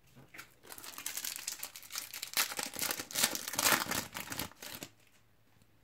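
Foil trading-card packet (a Panini sachet) crinkling and tearing as it is picked up and ripped open by hand, a dense run of crackling that stops about five seconds in.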